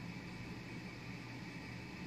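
Steady, unchanging background hum and hiss with no distinct sounds in it.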